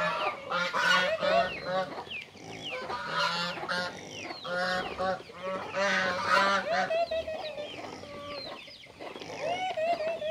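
A flock of poultry calling: many short, overlapping clucks and honks, loudest about a second in and again around six seconds.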